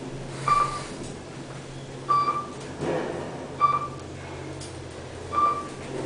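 Kone EcoSpace elevator's floor-passing chime, a short single-pitched beep sounding four times about every second and a half as the car descends past floors, over the steady low hum of the car in motion.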